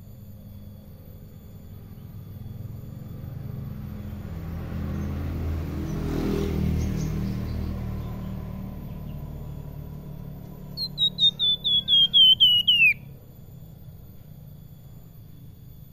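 Caged flamboyan songbird singing a brief flute-like phrase about eleven seconds in: a quick run of about ten whistled notes, each sliding down, that step lower in pitch and end in a longer downward slur. Before it, a low rumble swells and fades.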